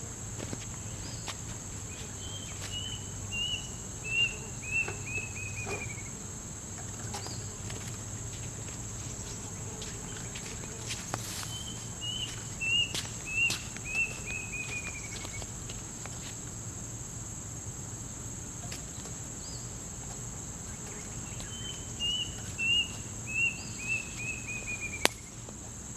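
A bird calling three times, each call a run of short whistled notes that fall in pitch and speed up, over a steady high insect drone.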